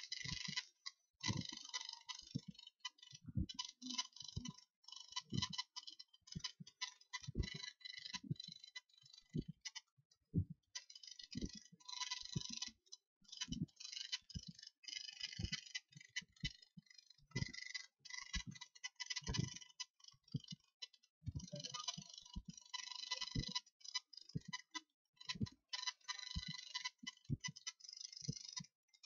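Irregular clicking of a computer mouse and keyboard, at times several clicks a second, over a high hiss that comes and goes.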